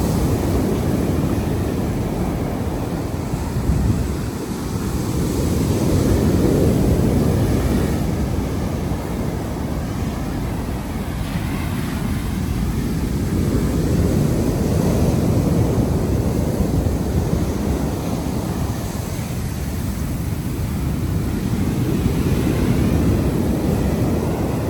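Sea waves washing onto the beach, heard as a rumbling rush that swells and fades about every eight seconds, with wind buffeting the microphone.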